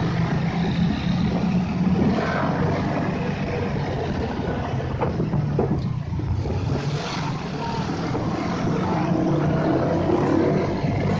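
Motorcycle engine running steadily at low road speed, heard from the rider's own bike in street traffic.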